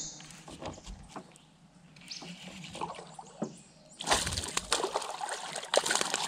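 Water splashing as a hooked bass jumps and thrashes at the surface, starting suddenly about four seconds in after a quieter stretch with a few faint ticks.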